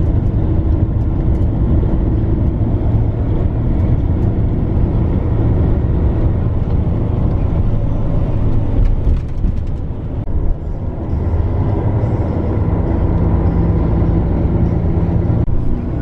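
Bus engine and road noise heard from inside the moving bus: a steady low rumble that dips briefly about ten seconds in.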